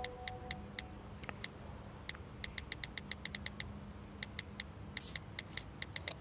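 Runs of quick, light ticks broken by short pauses, over a faint held musical chord that fades in the first second.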